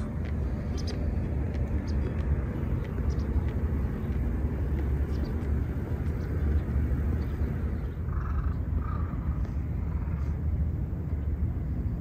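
Outdoor rumble of wind buffeting the microphone, a steady rough low noise, with two short faint sounds about two-thirds of the way through.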